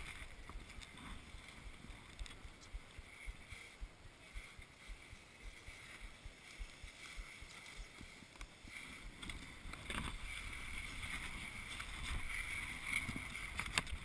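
Wind and handling rumble on a skier's body-worn action camera microphone. From about ten seconds in the noise grows louder, with scraping as the skis start sliding over packed snow.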